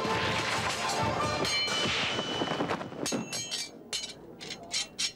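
Fight sound effects: a loud crash of tiles breaking through a roof under dramatic music, then from about three seconds in a quick run of sharp clinking hits that grow fainter.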